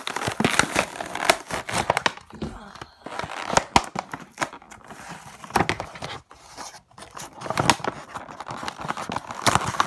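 Clear plastic blister pack being pried and torn off its cardboard backing card by hand: crinkling plastic and tearing card, with many irregular sharp clicks and crackles.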